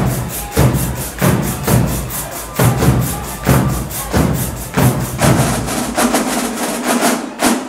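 Marching band drumline playing a fast cadence: a line of snare drums struck in unison in dense, rapid stick patterns, over heavier low drum hits recurring about every half to two-thirds of a second.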